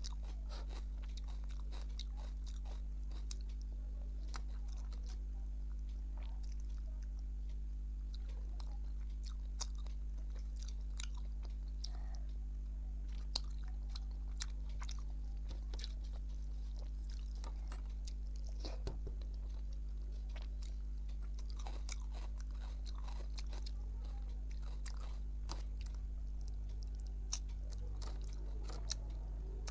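A person eating rice with mung dal, fish curry and brinjal fry close to the microphone: wet chewing, smacking mouth clicks and the odd crunchy bite, over a steady low electrical hum.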